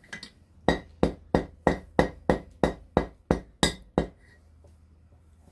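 Hand hammer striking hot steel on an anvil, about eleven blows at roughly three a second with a short metallic ring on each, drawing out a pin; the blows stop about four seconds in.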